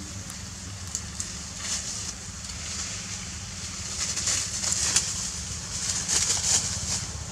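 Leaves and twigs rustling and crackling in short bursts as macaques move through foliage, louder about four seconds in and again near six seconds, over a steady low hum.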